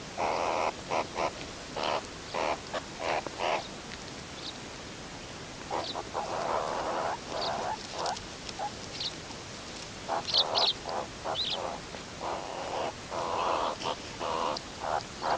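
Meerkats calling: short, harsh calls in quick runs of several at a time, with a few brief higher chirps between them, over a steady background hiss.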